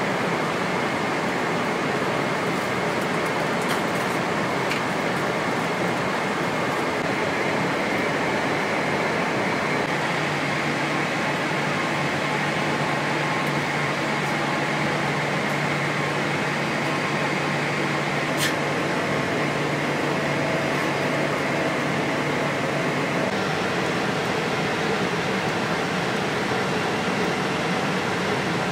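Steady rush of engine and airflow noise inside the cabin of a Boeing 777-300ER airliner descending to land, with a low hum showing for a stretch in the middle.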